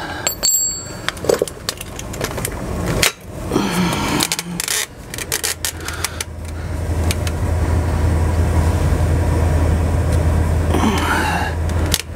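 Handling noise as a camera is moved and set down under a vehicle: knocks, clicks and rustling. A steady low hum comes in about five seconds in and runs until near the end.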